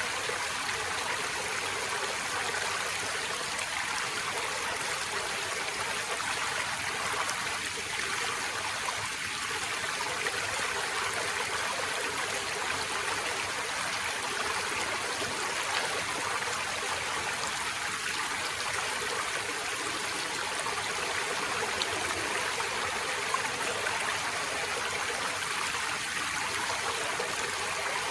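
Forest stream running over rocks: a steady, even rush of water with small trickling and splashing detail.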